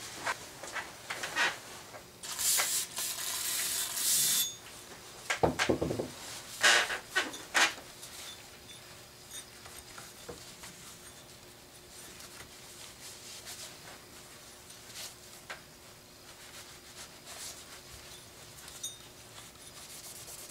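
New two-stroke piston being cleaned by hand: a spray can hisses for about two seconds, then a few knocks and clatters as parts are handled and set down, followed by quiet rubbing of a shop rag over the piston.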